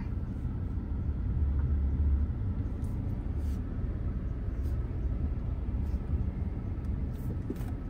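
A steady low rumble with a few faint ticks above it.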